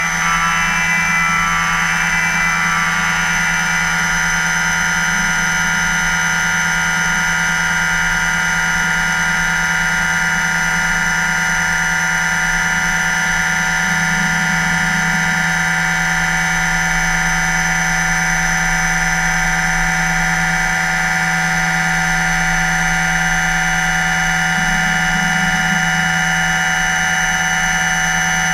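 Okuma MULTUS U4000 multitasking machine milling with a small end mill: a steady, high-pitched whine made of several held tones over a low hum, the low hum shifting slightly about halfway through and again near the end.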